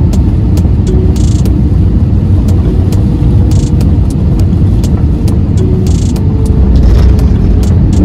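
Steady low rumble of a jet airliner's engines and rushing air, heard inside the cabin as the plane comes in low over the runway to land. Faint music plays over it.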